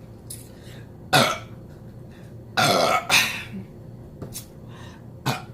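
A person belching: a short, sharp burp falling in pitch about a second in, then a longer, rougher burp lasting most of a second just before the middle, followed by a few fainter short sounds.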